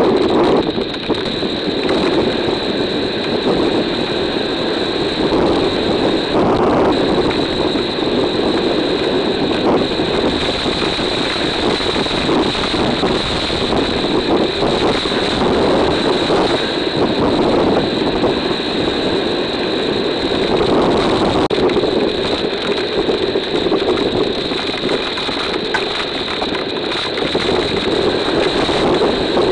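Hurricane wind and driving rain buffeting a trail camera's microphone: a loud, continuous rushing noise that surges and eases with the gusts. A steady high-pitched whine runs underneath.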